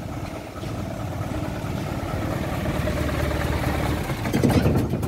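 Light truck engine idling steadily, with a brief louder swell about four and a half seconds in.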